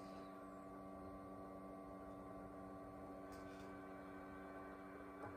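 Faint steady hum, several even tones held without change, from the Atwater Kent Model 10 breadboard radio as its tuning dial is turned by hand.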